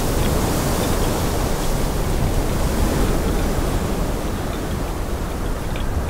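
Steady wind blowing, an even rushing noise with a few faint ticks.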